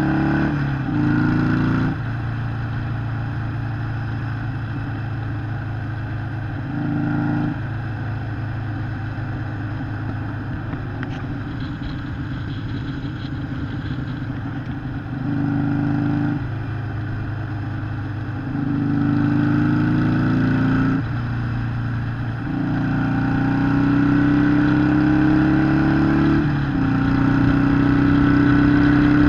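Harley-Davidson Sportster 883 SuperLow's air-cooled V-twin engine running, its pitch stepping up briefly a few times and then climbing steadily for several seconds at a stretch in the second half.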